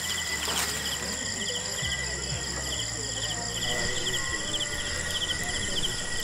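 Night insects chirping in a steady rhythm, about two pulsed chirps a second, over continuous high-pitched trilling.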